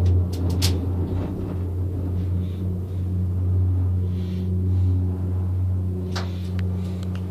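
Steady low rumble and hum of a moving gondola cabin, heard from inside. A few sharp clicks come near the start and again about six seconds in.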